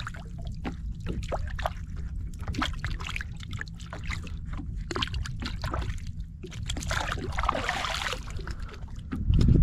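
Hands rinsing in seawater over the side of a boat: water dripping and trickling off the hands in many small splashes, with a bigger splash about seven to eight seconds in as the hands plunge into the sea. A steady low rumble runs underneath.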